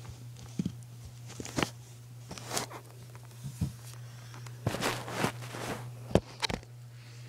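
Scattered short clicks and soft knocks, with a few longer rustling noises, over a steady low hum in a small room.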